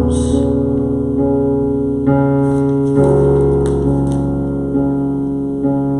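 Electric keyboard playing slow, sustained chords that change every second or two.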